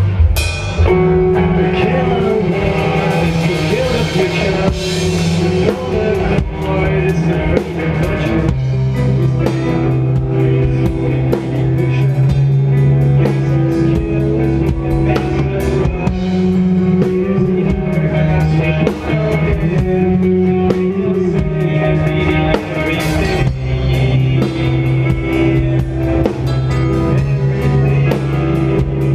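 Rock band playing live: electric guitar and bass holding sustained notes over a drum kit with steady cymbal and drum hits.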